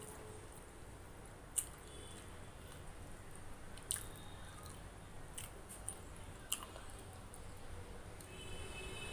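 Rice and chana masala curry being mixed and squeezed by hand on a plastic plate, with soft squishing and a few sharp clicks.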